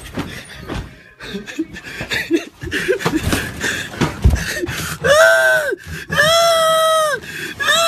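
Jostling and handling noise for a few seconds, then two loud, high-pitched screams, each held for about a second, with a third starting near the end.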